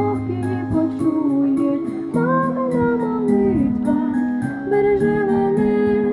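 A slow song playing: a melody of long held notes over guitar accompaniment.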